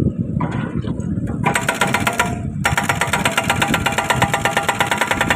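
Hydraulic breaker on a Kubota U50 mini excavator hammering in rapid, even blows, starting about a second and a half in, stopping for a moment, then hammering on, over the excavator's running diesel engine.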